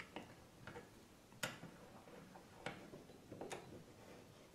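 Faint, scattered light clicks and taps, about six in a few seconds, from small parts being handled and set on a workbench while a clamp and the workpiece are positioned; otherwise quiet.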